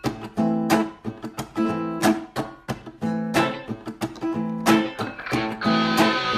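Background music: a rhythmic acoustic guitar strumming passage, growing fuller near the end as more instruments come in.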